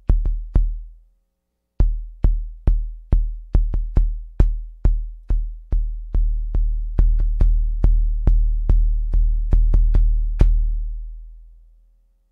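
Analog kick drum voice of an Akai Rhythm Wolf drum machine hitting repeatedly, about two to three hits a second, each a deep low thump that starts with a sharp click. The decay is being turned up, so the later hits ring longer, the last one fading out over about a second and a half.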